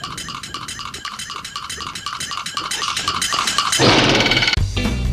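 Rapid animal calls repeated evenly, about five a second. Near the end they give way to a loud rushing burst of noise, and then strummed guitar music starts.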